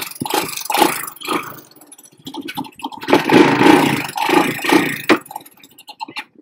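Small engine of a ride-on bike running unevenly, its level dipping and swelling, with a few sharp knocks near the end.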